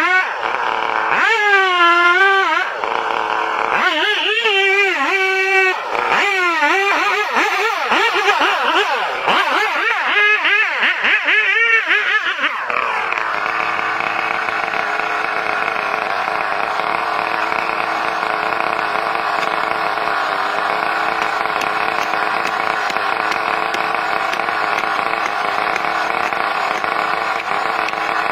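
An engine revving up and down repeatedly, then settling to a steady, even run a little before halfway through.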